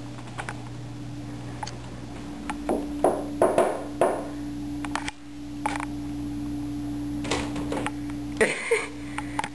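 Steady electrical hum at a fixed pitch, with a cluster of soft knocks and clicks about three to four seconds in and a short rustle near the end.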